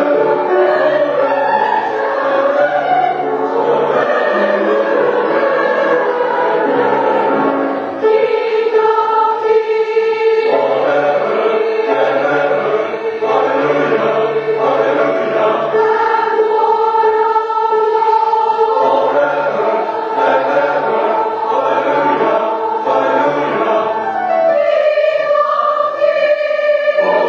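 Background music: a choir singing slow, long-held chords, changing chord about eight seconds in and again near the end.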